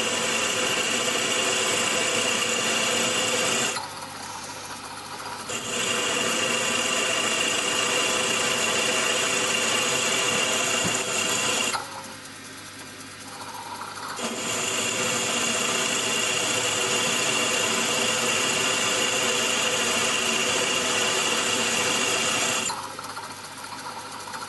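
A mill-drill's spindle drives an 8.5 mm tapping drill into a metal block for an M10 thread, running with a steady high whine while it cuts. The sound drops for a second or two three times as the drill is eased back out of the hole, then picks up again as it goes back in.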